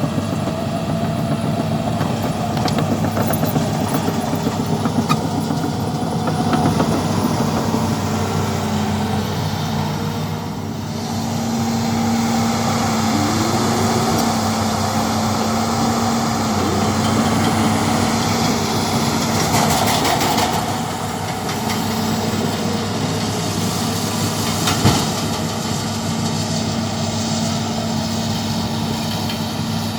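Excavator's diesel engine running steadily as it works, its hum dipping and rising slightly under hydraulic load, with one sharp knock near the end.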